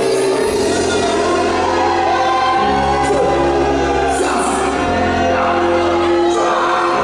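Loud music with choral singing: slow sustained chords over a low bass line that changes about every two seconds, played over a public-address system.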